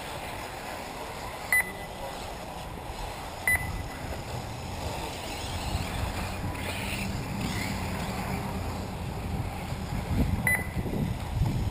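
Three short electronic beeps at one pitch, about one and a half seconds in, about three and a half seconds in and near the end, over a steady low rumble of wind on the microphone that grows louder near the end.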